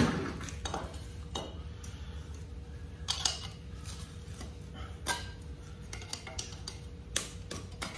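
Hand tools clinking and scraping on metal while a brass sleeve is dug out of a 1954 Hudson 308 thermostat housing. The loudest clatter comes right at the start, followed by a handful of separate sharp clinks.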